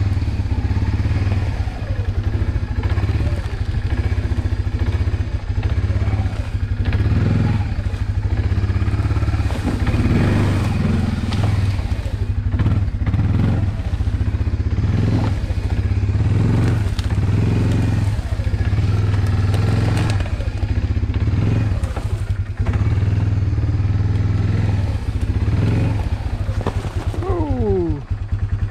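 Honda FourTrax 300 ATV's single-cylinder four-stroke engine running at low speed, its note rising and falling with the throttle as it crawls through swamp grass, with dry grass brushing and crackling against the machine. A short falling whine comes near the end.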